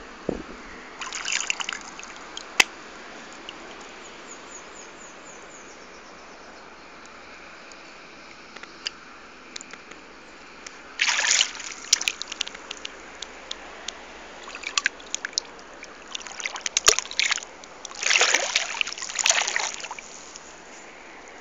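Shallow seawater trickling and sloshing over sand, with short bursts of splashing and scraping as a small child's hands scoop through the water and wet sand: once about a second in, again around the middle, and several times near the end.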